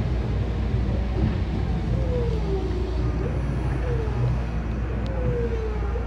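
Sanyo Electric Railway electric train running, heard from the front cab: a steady low rumble with a few faint wavering tones that slide up and down in pitch.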